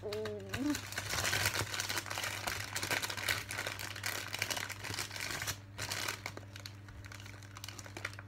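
Clear plastic marshmallow bag crinkling as a hand rummages in it, for about five seconds with a shorter burst a little later, then quieter. A short muffled vocal sound through a mouth stuffed with marshmallows comes just before it.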